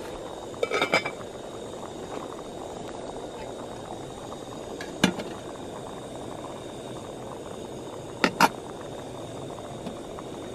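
Gas canister camp stove burning steadily under a pot of rice at the simmer, with sharp metal clinks about a second in, once near the middle and twice close together near the end, as metal cookware is set down and handled beside it.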